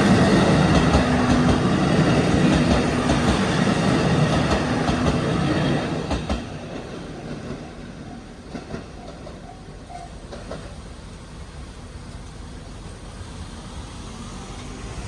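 KiHa 25 diesel railcars passing at speed, their engines droning low and steady while the wheels clack over rail joints. About six seconds in the train moves away and the sound drops to a fainter rumble, with a few more wheel clacks as it recedes.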